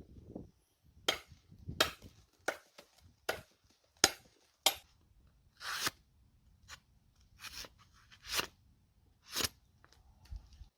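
A knife cutting or chopping in a series of about a dozen sharp, irregular strokes, a few with a short scraping tail, over low handling rumble.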